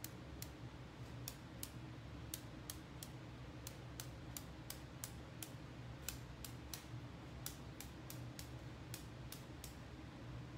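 Marbling brush loaded with paint being tapped to spatter drops onto the size for a stone pattern: a run of sharp, faint clicks, about two to three a second and unevenly spaced, that stops shortly before the end.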